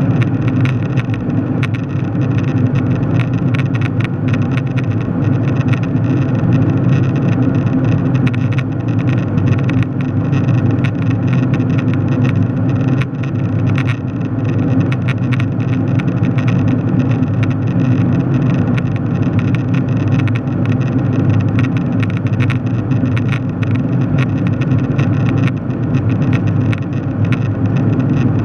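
Steady cabin noise of a jet airliner in cruise: the deep, unchanging drone of the engines and the air rushing past the fuselage, heard from inside the cabin.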